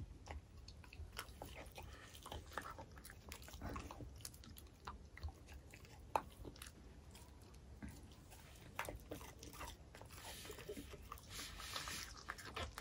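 A dog chewing pieces of soft homemade muffin, with irregular wet smacks and clicks of its mouth.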